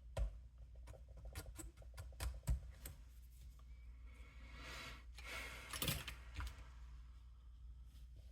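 Clicks and taps of small hard parts being handled and fitted together on an RC truck's front suspension, with a short scraping rustle building around five to six seconds in.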